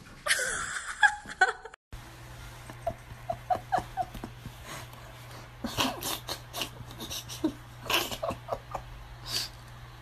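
A loud noisy burst in the first two seconds, cut off abruptly. Then a small dog, a dachshund, gives short high whines and snorts, with bursts of a person's laughter, over a steady low hum.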